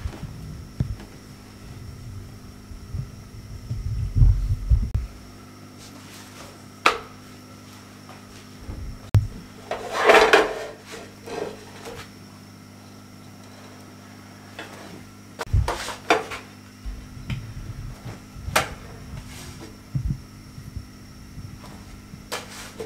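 Roti-making sounds: dull thumps of dough being pressed and rolled out on a wooden worktop, in the first few seconds and again later. A few sharp clicks and clatters of metal tongs against a non-stick tawa, the loudest about ten seconds in.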